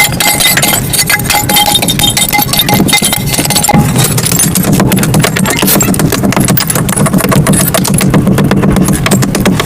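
Baked red dirt clay crunching and crumbling: a dense, continuous run of sharp crackles. From about four seconds in, a steady low rumble runs underneath.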